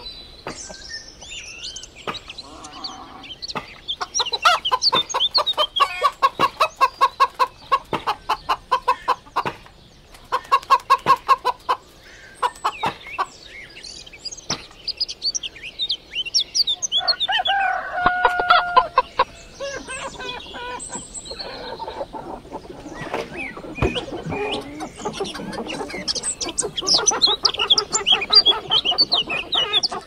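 A flock of chickens clucking and calling, with fast runs of repeated clucks, high chirps throughout, and a long drawn-out call a little past halfway.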